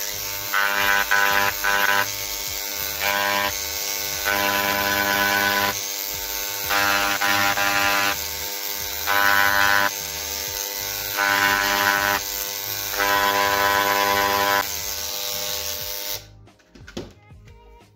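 Parkside mains-powered electric engraving pen buzzing steadily, with louder rasping surges every second or two as its vibrating tip is pressed into plastic to cut letters. It is switched off and stops suddenly near the end.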